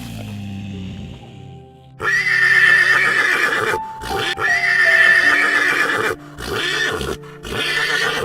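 Horse whinnying: two long, loud, quavering neighs about two and four seconds in, followed by a few shorter calls, over background music.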